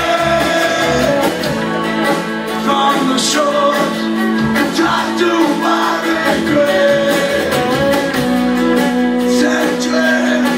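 A live folk-rock band playing: strummed acoustic guitar and fiddle with a sung vocal, recorded loud from within the audience.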